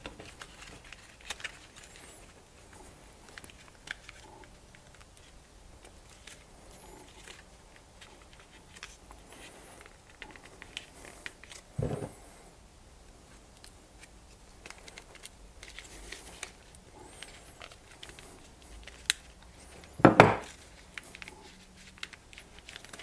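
Stiff birch bark strips crackling and rustling with scattered small clicks as they are folded, twisted and pushed through a woven star. A metal multi-tool knocks on the wooden table about twelve seconds in, and again more loudly about twenty seconds in.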